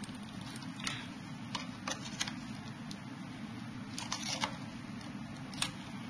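Scattered small clicks and short scrapes as a metal putty knife is worked against a hard edge, over a steady low hum.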